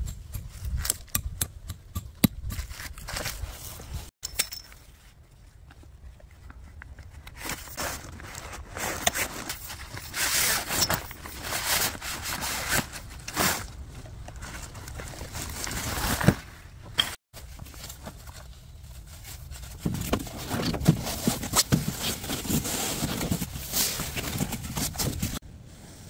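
Tent fabric and a plastic ground tarp rustling and crinkling as a tent is handled and staked out, with irregular scrapes and a few sharp clicks.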